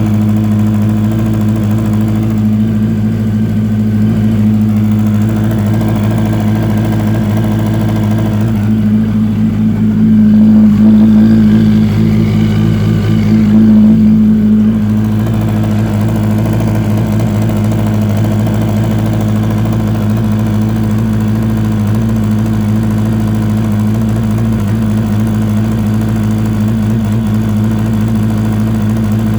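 2004 Yamaha YZF-R1's inline-four engine idling steadily, carrying a strange noise from the left-hand side of the engine that the owner suspects could be a spun bearing or the valves. It gets louder twice near the middle.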